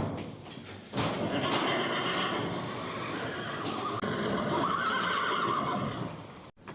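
An animal calling, with a stronger drawn-out call about two thirds of the way through; the sound cuts off abruptly near the end.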